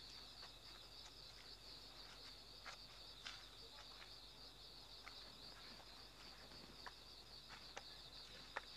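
Faint chorus of night insects chirring steadily at a high pitch, with a few soft scattered clicks.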